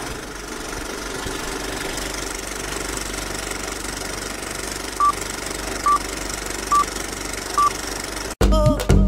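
A steady mechanical rumbling drone with four short, high beeps evenly spaced a little under a second apart, like a countdown, then music cuts in suddenly near the end.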